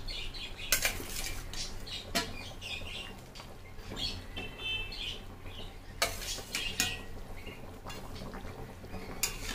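A spatula knocking and scraping against a metal kadai as fried fish pieces are lowered one by one into boiling curry, with a few sharp clacks.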